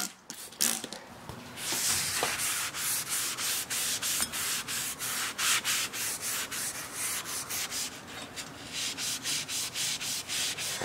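Scotch-Brite scouring pad scrubbing a cookstove's metal cooktop in quick back-and-forth strokes, a rhythmic rasping, stripping off the factory oil film. The first second or so is quieter, and near the end the strokes come about three a second.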